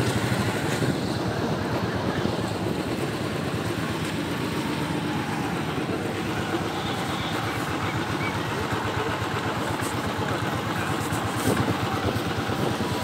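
Motorcycle engine running steadily as it is ridden, with road noise.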